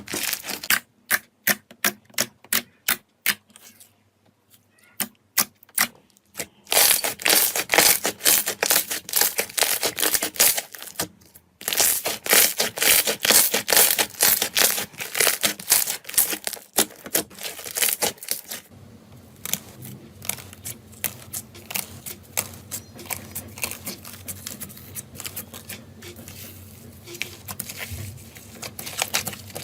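Slime being squeezed and worked by hand, making rapid crisp crackling and popping clicks. A short lull comes about four to six seconds in, dense crackling follows until about sixteen seconds, and softer crackling then runs on over a faint low hum.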